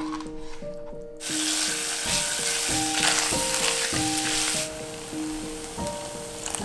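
Food frying in oil in a pan, the sizzle starting abruptly about a second in and dropping to a quieter sizzle a little past the middle. Light background music with single held notes plays throughout.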